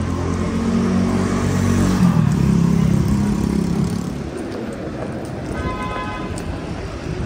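Street traffic with a motor vehicle's engine running loudly close by for the first few seconds, then easing off. A brief high tone sounds about six seconds in.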